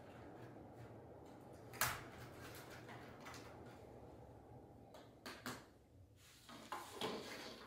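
Small parts being handled by hand: one sharp click about two seconds in, then a few lighter clicks and knocks near the end, over a low steady room hum.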